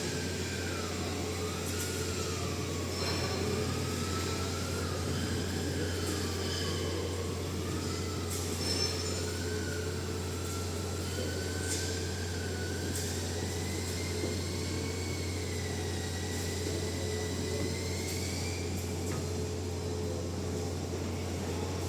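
Metal lathe running steadily, a constant low hum with a thin whine above it that wavers up and down and slowly rises in pitch.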